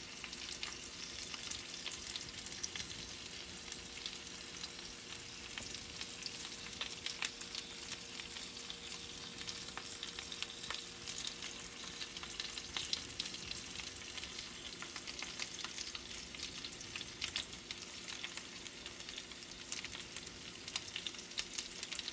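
Fat and juices sizzling around roasting chicken leg quarters in a baking pan in a hot oven: a steady hiss dotted with many small irregular pops and crackles. A faint steady hum runs underneath.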